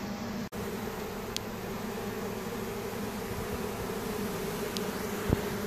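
A mass of honey bees buzzing in a steady, continuous hum around a hive box and barbecue lid, with a brief dropout about half a second in and a light knock near the end.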